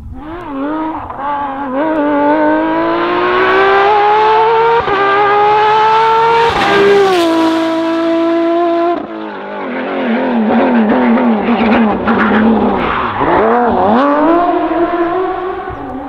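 Porsche 997 GT3 Cup rally car's flat-six engine at full throttle, rising steadily in pitch as the car accelerates. The pitch drops abruptly about six and a half seconds in and again around nine seconds, as the car goes by, and near the end the revs dip briefly and rise again.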